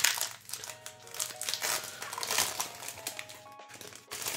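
Foil booster pack wrapper crinkling as it is handled and torn open, over quiet background music.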